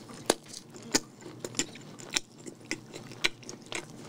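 A person chewing a mouthful of burger close to the microphone: irregular sharp mouth clicks and smacks, about two or three a second.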